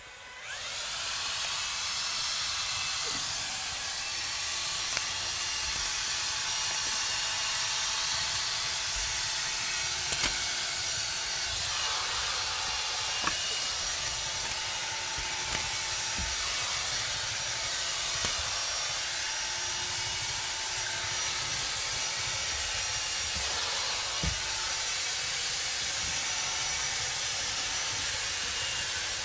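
A steady, even hiss that sets in about half a second in and holds unchanged, with a few faint clicks.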